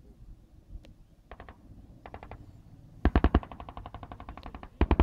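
Bursts of automatic gunfire, machine guns firing in rapid strings: two faint short bursts, then a loud burst about three seconds in, quieter firing after it, and another loud burst near the end.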